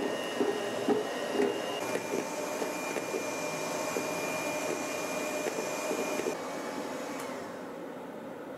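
Electric hand mixer running with a steady whine as it whips chilled cream, with a few knocks of the beaters against the bowl in the first second and a half. Its pitch shifts about two seconds in, and the sound drops somewhat near the end.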